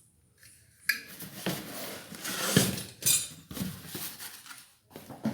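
Ceiling fan parts and packaging being handled: short knocks, clatters and rustling, starting about a second in.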